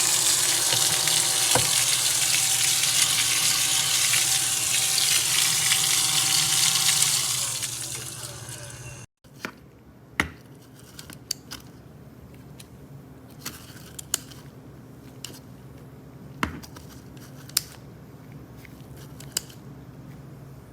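Small battery-powered vacuum cleaner running with a steady rushing whir, then switched off and winding down about seven seconds in. After that come scattered light clicks and knocks of plastic parts being handled.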